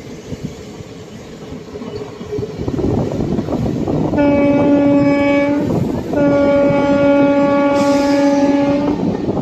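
Locomotive horn sounding twice, a blast of about a second and a half and then a longer one of about three seconds, over the rumble and clatter of the moving passenger train's wheels on the track.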